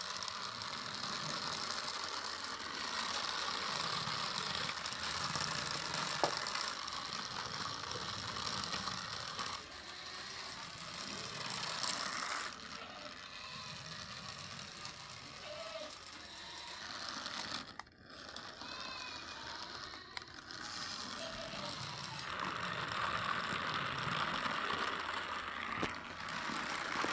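Toy pull-back mini truck being run: its spring-wound motor and small plastic wheels make a continuous mechanical whirring rattle, dipping briefly about two-thirds of the way through.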